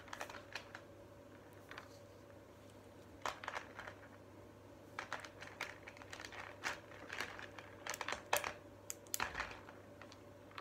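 Plastic threading beads clicking and rattling in scattered, irregular clicks as a child handles them and threads them onto a string.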